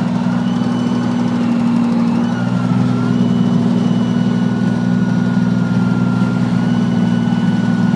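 Jeep Wrangler YJ engine running, with a thin whistle over it that bends down and back up in the first few seconds, then holds a nearly steady pitch. The whistle changes pitch with throttle position and comes and goes with it; the owner suspects the air intake or a vacuum line.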